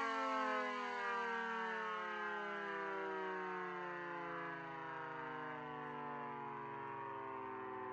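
Miniature 3T22A-style rotating siren with a 250-watt motor winding down, its wail falling slowly and steadily in pitch and fading as the rotor coasts.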